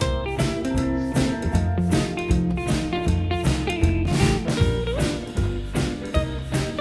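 Background music: guitar over bass and a steady drum beat, in a bluesy style.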